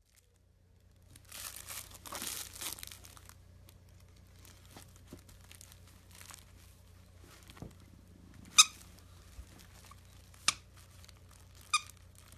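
Crinkling and rustling for about two seconds, then three sharp clicks a couple of seconds apart, the first the loudest, over a faint low hum.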